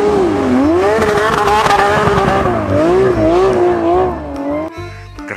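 Race car engine revving sound, its pitch rising and falling in repeated waves, raspy in the middle and easing off near the end.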